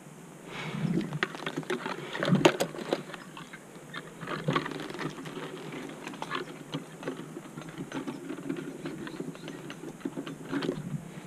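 Metal climbing and cabling hardware clicking and clinking irregularly, with rustling, as a climber handles gear in a tree.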